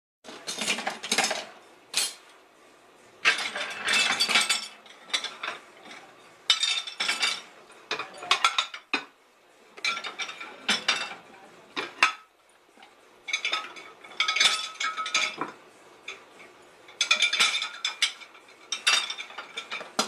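Dishes and cutlery clinking and clattering against each other and the wire racks of a dishwasher as they are handled, in repeated bursts of about a second with short quieter pauses between.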